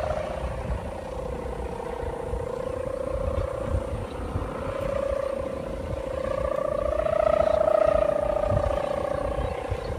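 Kite hummer (sendaren), a bowed string on a kite, droning in the wind. The single humming tone wavers slowly, rising a little in pitch and swelling louder about seven seconds in, then easing back down. A low wind rumble runs underneath.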